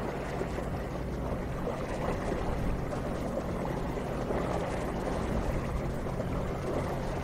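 An engine running steadily with a low, even hum, over a wash of rushing water.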